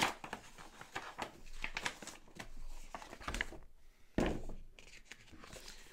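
Board game cards and cardboard components handled in the box: a run of small rustles and taps, with a sharper knock at the start and another about four seconds in.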